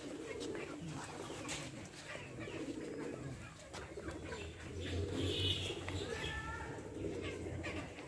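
Birds cooing in the background while a goat eats from a steel bowl, its muzzle making scattered soft clicks and scrapes against the metal.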